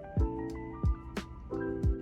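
Lo-fi background music: a steady beat of deep kick drums and sharp snare-like clicks under soft held keyboard chords.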